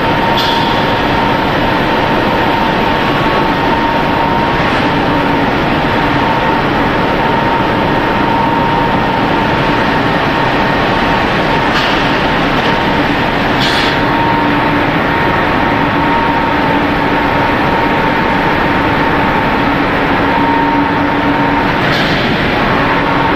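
Machinery of a rice extruder production line running with a loud, steady drone and a constant whine, broken by a few short hisses.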